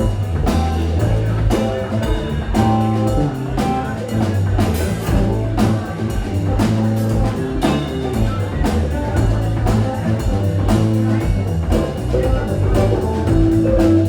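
Live band playing an instrumental passage on electric guitar, bass, drum kit and keyboards, with a steady drumbeat under held bass notes.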